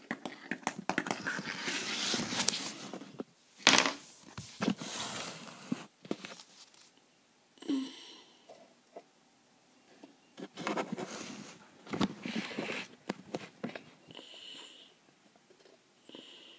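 Handling noise: irregular rustling and scraping as a small plastic model horse is moved by hand and the phone is shifted about, with a sharp knock a few seconds in and a few smaller ones later.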